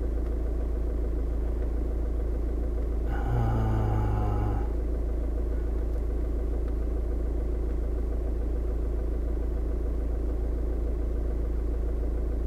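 Skoda Octavia Mk2's engine idling, heard inside the cabin as a steady low rumble. About three seconds in, a brief steady hum-like tone sounds for a second and a half.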